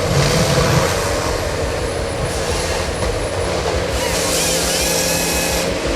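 Forestry harvester running: a steady engine hum, with a loud burst of hiss about four seconds in that stops shortly before the end.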